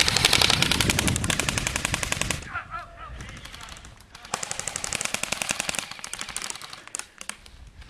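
Airsoft guns firing on full auto: rapid strings of plastic-pellet shots, one burst lasting about two and a half seconds and then, after a short pause, a second of about the same length starting a little past four seconds in.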